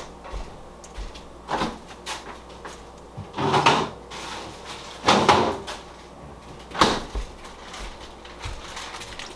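Kitchen cupboard doors and drawers opening and shutting, about five separate knocks and scrapes, as flour is fetched from a cabinet.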